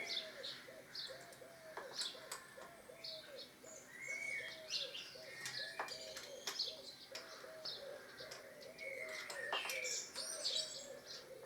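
Birds calling: one repeats a short, arching note about three times a second while others chirp higher up. A few sharp metallic clicks come through now and then, from an Allen key being worked on the screen's mounting bolts.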